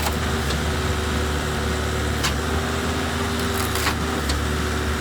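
Log splitter's engine running steadily with a constant low hum, with a few short sharp knocks along the way.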